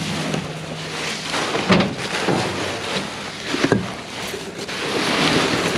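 Rustling and scraping of trash and plastic being handled and moved around, with a few sharp knocks, over a low steady hum.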